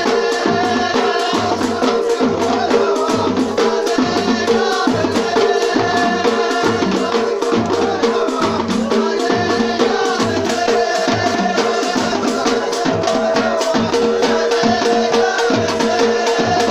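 Music with a regular drum beat of a little over one stroke a second, hand percussion, a held drone note and a wavering melody line over it.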